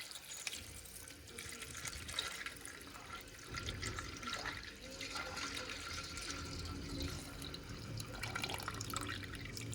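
Water running and splashing, as from a tap into a sink, with small clinks and knocks of things being handled.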